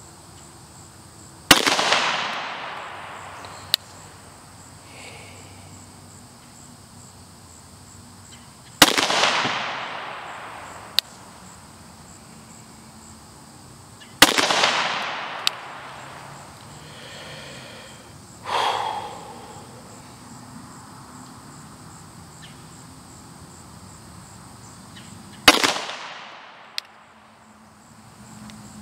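Four single shots from a Glock 41 pistol in .45 ACP, fired slowly several seconds apart, each with a long echoing tail and followed about two seconds later by a short sharp crack. Insects chirp steadily in the background.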